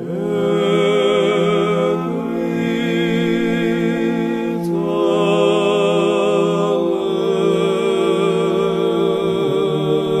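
Slow chant-like singing with long held notes that waver, moving to a new pitch about every two seconds.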